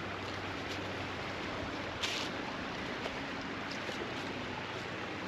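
Footsteps crunching on dry fallen leaves, a few short crackles with one louder step about two seconds in, over a steady rushing outdoor background from the creek below.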